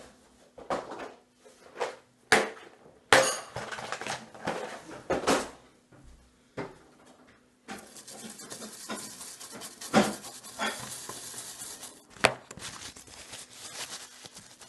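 Small metal tools and objects clinking and knocking on a hard workbench, with a string of sharp knocks over the first six seconds. About halfway through this gives way to a steady rough hiss broken by a few more knocks.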